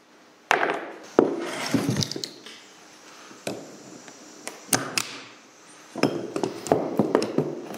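Pliers and a small pry bar clinking and scraping on the steel ball-socket linkage of a John Deere 710 hydraulic valve as a spring clip is pried at: an irregular string of sharp metal clicks and taps.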